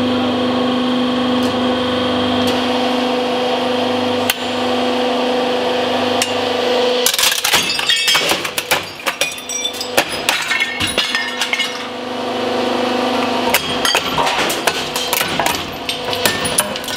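A hydraulic press's pump hums steadily as its plate bears down on an aluminium motorcycle engine block. About seven seconds in, the block starts to give way with a rapid run of sharp cracks, snaps and clinks of metal breaking apart, and the steady hum comes back under the cracking in the last few seconds.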